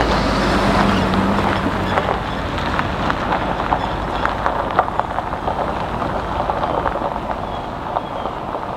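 A vehicle driving on a gravel road: a steady rush of tyres on gravel with many small sharp clicks of stones, and a low engine hum that fades out in the first two seconds.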